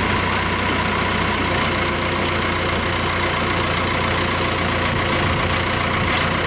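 Diesel engine of a Gradall 524 telehandler idling steadily.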